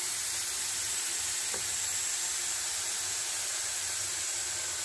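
Steam hissing steadily out of an aluminium pressure cooker's vent with the whistle weight lifted, venting the built-up pressure before the lid is opened. The hiss eases slightly near the end.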